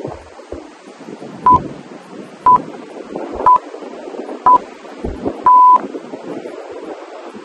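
Workout-timer countdown beeps: four short beeps about a second apart, then one longer beep at the same pitch, marking the start of the next exercise.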